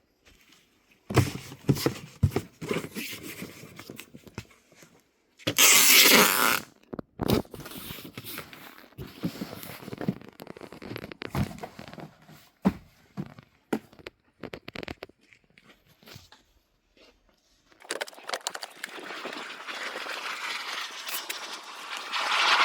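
Packing noises: scattered knocks, scrapes and rustles of squashes and cardboard boxes being handled, with a loud, brief tearing noise about six seconds in. From about eighteen seconds a steady rushing sound builds, louder toward the end.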